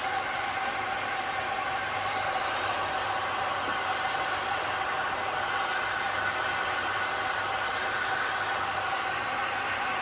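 Heat gun blowing hot air steadily, a constant whirring rush with a steady whine.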